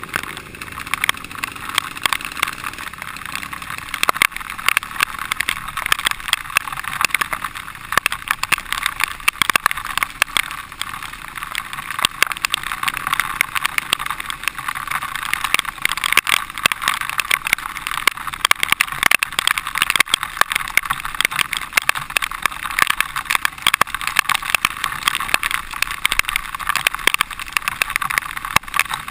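Dirt bike being ridden over a rough dirt trail, heard from a camera mounted on the bike: the engine runs under a steady rush of wind noise, with frequent knocks and rattles from the bumps.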